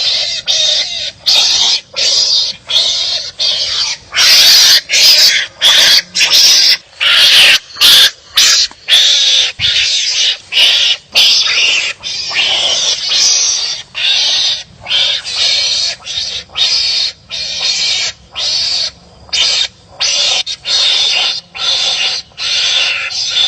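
Wild animals squabbling, giving harsh, raspy barking calls at each other in quick succession, about two calls a second.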